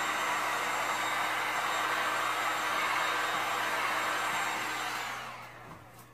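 Electric heat gun blowing hot air over freshly poured epoxy resin to warm it, a steady blowing with a fan whine; a little past five seconds in it is switched off and the fan winds down, its whine sliding lower.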